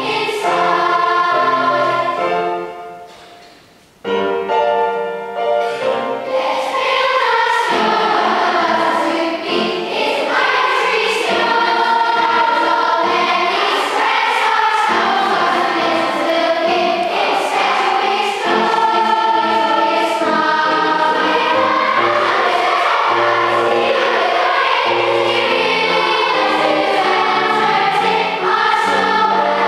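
Children's choir singing in a large hall. The voices die away about three seconds in and come back in together a second later.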